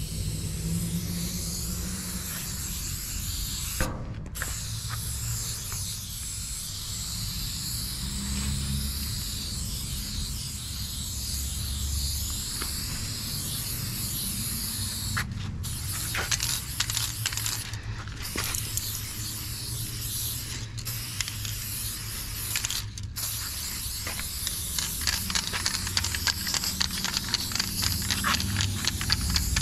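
Aerosol spray paint hissing from a spray can in long strokes, stopping briefly several times between strokes. A run of rapid clicks comes near the end, over a low rumble.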